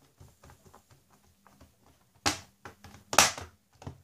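Plastic bottom cover of an ASUS Transformer Book T100 keyboard dock pressed down by hand, its clips snapping into place. Faint clicks come first, then two sharp snaps about two and three seconds in, the second the loudest.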